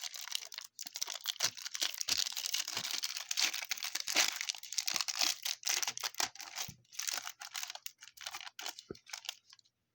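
A trading-card pack wrapper crinkling and tearing as it is handled and opened, a dense run of crackles that thins out and stops near the end.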